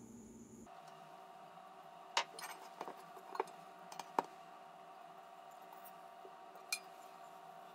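Stainless steel mixing bowl clinking and knocking against a countertop as it is handled and tipped to turn out bread dough: a handful of clinks about two to four seconds in and one more near the end, over a faint steady hum.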